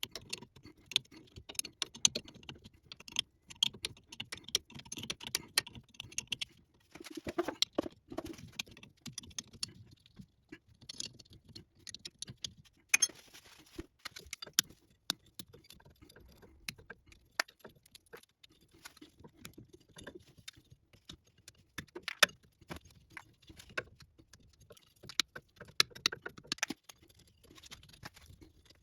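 Hand tools and metal parts clinking and tapping irregularly, with the odd louder knock, during hands-on suspension work.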